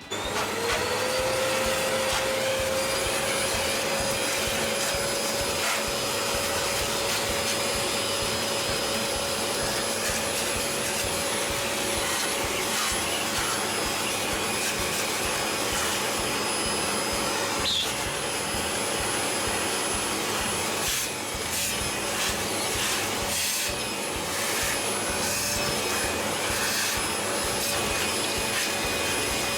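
Vacuum cleaner switched on, its motor spinning up within half a second to a steady whine with rushing air. In the last third it runs under irregular clicks and scraping.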